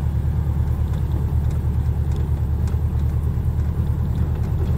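A car driving along, with a steady low rumble of engine and road noise.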